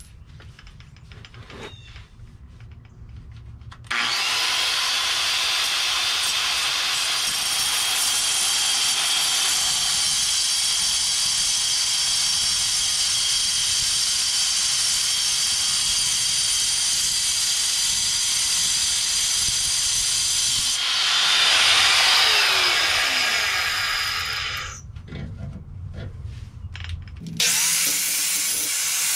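High-speed handheld rotary grinding tool starting abruptly about four seconds in and running with a steady high-pitched whine, getting louder and shifting in pitch as it bears on the metal, grinding away clearance at the firewall for the clutch cable. It stops near the end, then starts up again. Light clicks and handling noise come before it.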